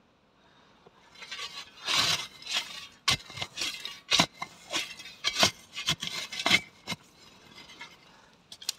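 Heavy digging shovel scraping and chopping into loose, stony soil: a run of rasping scoops and crunching strikes, starting about a second in and stopping near the end.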